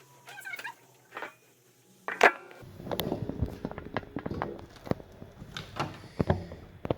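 Handling noise on a workbench: a sharp click a little over two seconds in, then a busy run of small knocks, clicks and clatter.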